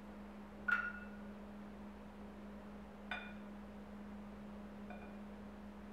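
Light metal clinks of a condensed-milk tin and a small steel measuring cup being handled for pouring: a sharp ringing clink about a second in, a softer one about three seconds in and a faint one near the end, over a steady low hum.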